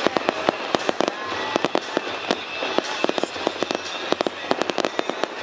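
Fireworks display: a dense, continuous run of sharp bangs and crackles, many a second, with no let-up.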